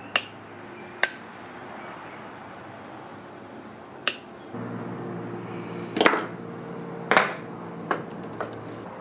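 Metal parts clinking and knocking, sharp taps that ring briefly, seven in all. About halfway in, a steady electric hum starts under them.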